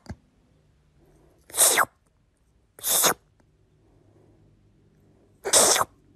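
Three sharp sneezes, each a short noisy burst, coming at uneven gaps of one to three seconds.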